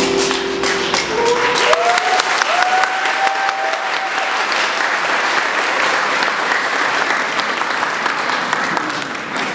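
Audience applauding after the dance music's last held notes die away at the start, with a few rising cheers in the first few seconds over steady dense clapping.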